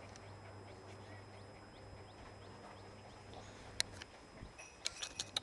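Light clicking and rattling from a wire puppy cage as golden retriever puppies scramble about: one sharp click about four seconds in, then a quick run of clicks near the end, over a faint steady low hum.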